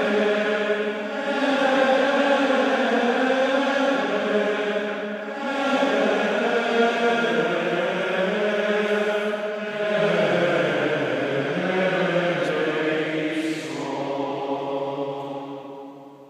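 A group of voices singing a liturgical chant in long held phrases, with short breaths between phrases, dying away near the end.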